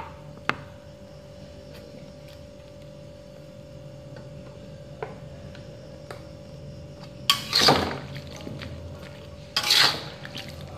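Metal spatula scraping and turning mushrooms in a wok, in two loud strokes near the end after several quieter seconds. A faint steady hum runs underneath.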